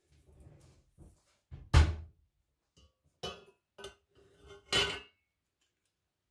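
A stainless steel strainer handled and set down onto a white pitcher: a few separate knocks and clunks of kitchenware, the loudest about two seconds in.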